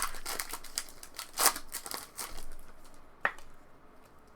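Trading card packs being opened and handled: foil wrappers crinkling and tearing and cards rustling, in a quick run of sharp strokes that eases off after about two and a half seconds, with one sharp click a little after three seconds.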